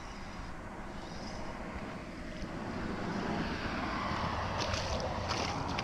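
A hooked zander splashing and thrashing at the water's surface as it is reeled in to the side of a rowboat. The splashing builds through the second half, with several sharp splashes near the end.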